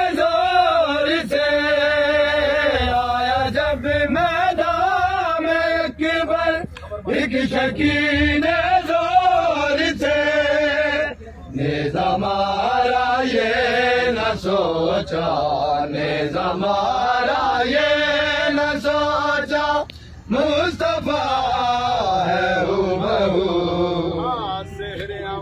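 A voice chanting with long held, wavering notes, breaking off briefly a few times.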